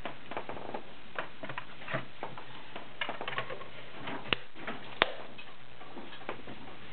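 Irregular light clicks and handling noises from a Singer 403A sewing machine being worked by hand between stitching runs, with two sharper clicks about four and five seconds in.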